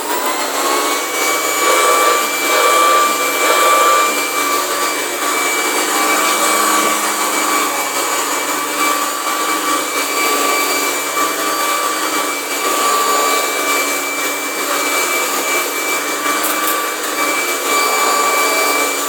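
Hoover Professional Series CH520 commercial upright vacuum finishing its motor wind-up in the first second, then running at full speed with a steady whine. Its brush roll has been rebuilt with added brush strips to balance it, which the owner says makes the machine run smoother and quieter.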